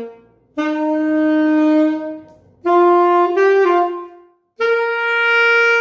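Alto saxophone playing a short swing exercise phrase: three held notes with brief gaps between them, rising in pitch, the middle one briefly stepping up a note and back. The eighth-note pairs are phrased long-short, the first lengthened and the second cut short, as swing feel demands.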